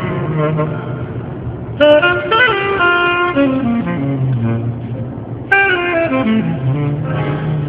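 Background music: a melody in falling phrases over a steady bass line, each phrase starting with a sharp attack.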